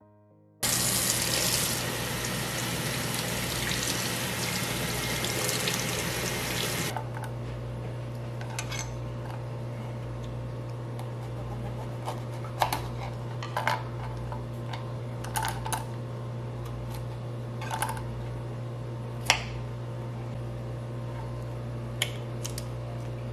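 Running tap water hisses for about six seconds and then stops. After that, a knife cuts through an artichoke stem on a plastic cutting board and kitchen scissors snip off the leaf tips: a handful of separate sharp clicks and snips over a steady low hum.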